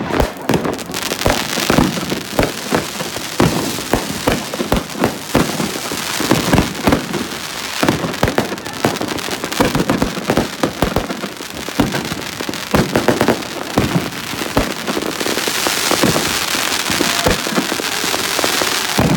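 Many fireworks going off at once: a dense, unbroken barrage of bangs and pops from bursting rockets and firecrackers. A crackling hiss thickens from about three-quarters of the way through.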